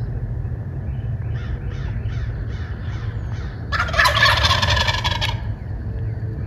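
Wild turkey gobbler gobbling loudly once, about four seconds in. Before it comes a run of about eight short, evenly spaced yelping notes, all over a steady low rumble.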